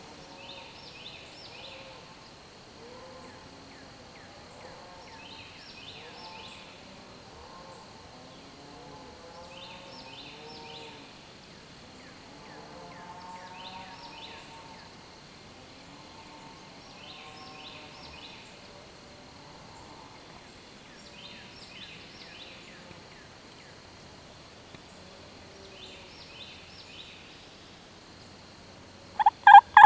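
Quiet spring woods: a short high chirping phrase repeats about every two seconds over a steady high hum and softer lower calls. Near the end a wild turkey gobbler gobbles loudly.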